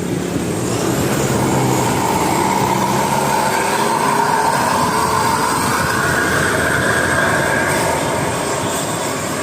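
A large bus running, with loud engine and road noise and a steady low hum that fades after about three seconds. A whine rises slightly in pitch through the middle.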